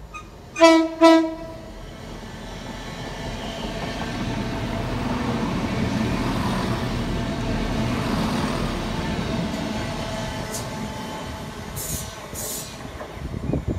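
Two short toots on the horn of a CrossCountry Class 170 Turbostar diesel unit, each a single steady note, then the rumble of trains running through, building to a peak and easing off.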